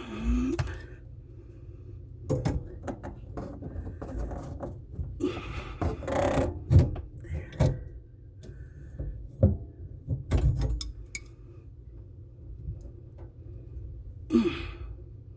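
Adjustable wrench working on corroded faucet supply-line nuts under a kitchen sink: irregular knocks, clinks and scrapes of metal on metal, loudest about 7 and 10 seconds in.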